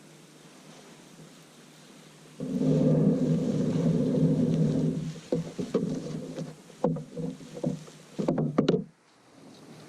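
Fishing reel cranked hard for about two and a half seconds as a hooked bass is fought in, then a run of knocks and clunks against the kayak.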